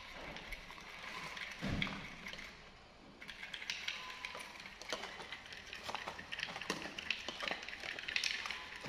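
Many small irregular clicks and taps over a light rustle, starting about three seconds in: a metal spoon and a stirring stick knocking in a plastic jug while a cardboard medicine box is handled. A single dull thump comes a little under two seconds in.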